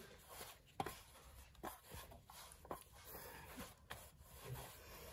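Hands kneading a lump of flour dough on a flour-dusted metal tray: faint rubbing with a few soft taps.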